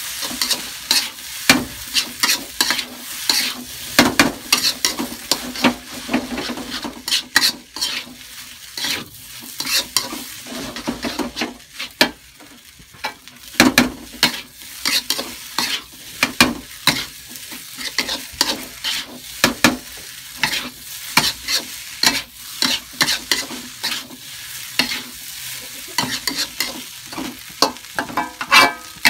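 Metal spatula scraping and clattering against a wok in quick, irregular strokes as fried rice is stir-fried, over a steady sizzle of the rice frying.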